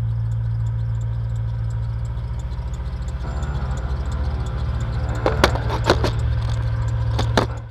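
Steady low drone of the Jaguar XK8's V8 engine and tyres, heard inside the cabin while driving, with a few sharp rattles around five to six seconds in and again near the end.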